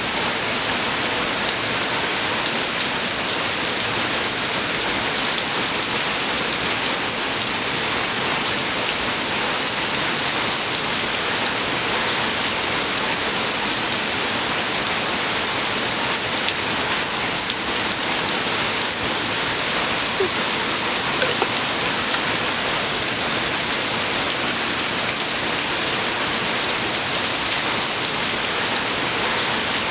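Falling water: a steady, even hiss of many small drops pattering on a surface.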